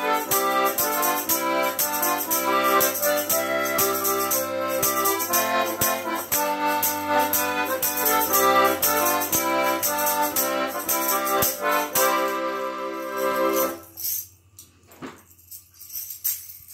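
Diatonic button accordion playing a lively two-step with a handheld tambourine struck on the beat. About three quarters of the way through the music ends on a held chord and stops, leaving only a few faint knocks.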